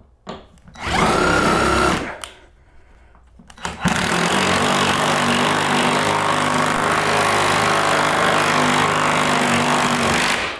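Cordless drill driving a bolt up through a steel ceiling bracket into a wood joist: a short run of about a second, a pause, then one long steady run of about six seconds that stops near the end.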